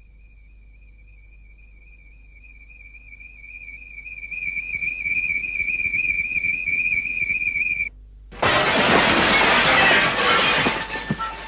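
Soundtrack sound design: a single high wavering tone, theremin-like, wobbles about four times a second. It swells louder with a hiss rising beneath it, then cuts off about eight seconds in. A loud, harsh crash of noise then takes over and stays loud.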